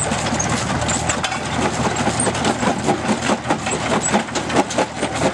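Belt-driven antique jaw rock crusher running, clattering and knocking in a rapid, uneven run as it breaks rock, heavier in the second half. Under it, the Farmall tractor engine that drives the belt runs steadily.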